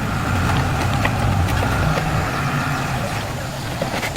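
SYM EZ 110 scooter's 110 cc engine running steadily, now starting after the repair, then cutting off suddenly at the end.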